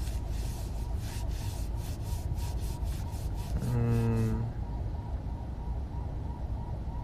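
Steady road and engine rumble inside a moving car's cabin, with faint ticking over the first few seconds. About four seconds in comes one short, flat, low hum from a man's closed mouth, under a second long.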